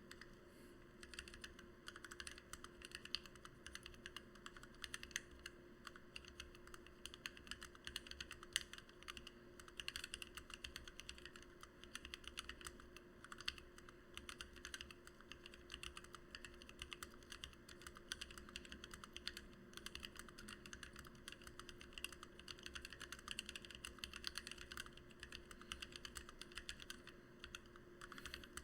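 Continuous rapid typing on a Lily58 split mechanical keyboard with an acrylic plate and bottom, lubed and filmed Gateron Black Ink V2 linear switches and PBT OEM-profile blank keycaps: a dense stream of keystrokes with brief lulls.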